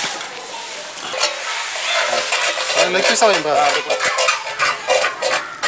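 Metal ladle scraping and clinking against a large metal cooking pot while cooked chicken biryani is stirred and scooped out onto a steel plate, with many quick scrapes and clicks.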